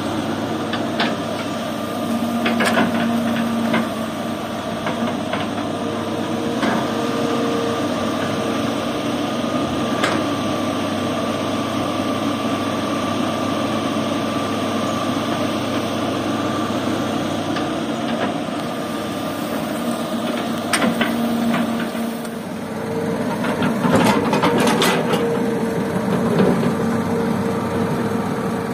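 Diesel engine of an old excavator running steadily at work, with the idling dump truck beside it. Scattered clanks and knocks from the bucket scooping and dropping soil, several close together near the end.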